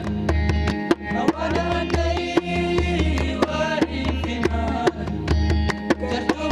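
Tuareg desert blues music: guitar melody lines that bend in pitch over a steady beat of sharp hand-percussion strokes, with singing.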